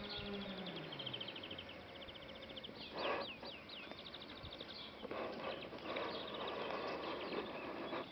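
Rural outdoor ambience: a cow lowing, trailing off about a second in, over repeated fast rattling trills. A few quick chirps come about three seconds in, and a rustling noise runs through the second half.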